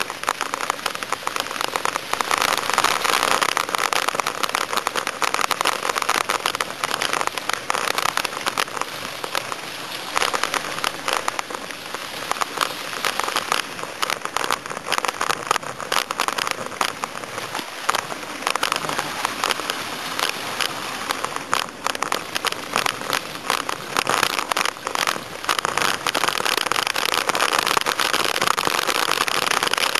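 Dense, steady crackling and rattling of tyres rolling over a rough forest road, with the shaking camera picking up many small clicks.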